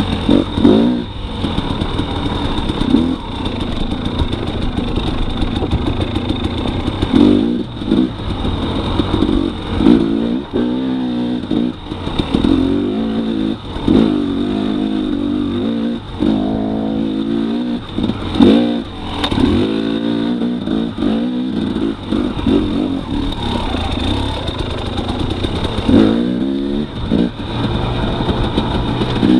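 2018 Husqvarna TX300 two-stroke dirt bike engine under riding, revving up and dropping back over and over as the throttle is worked.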